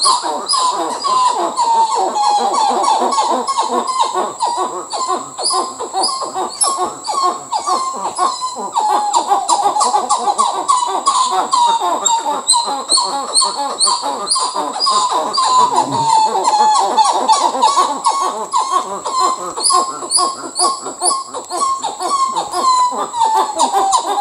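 Dusky titi monkeys (Callicebus moloch) calling: a loud, unbroken series of fast, repeated notes that sweep down in pitch in runs, with higher chirping notes over them. This is their territorial call, warning neighbouring family groups to stay away.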